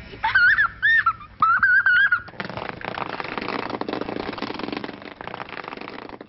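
A young boy's high-pitched squeals of delight, two wavering bursts in the first two seconds, followed by a steady rustling, scuffling noise.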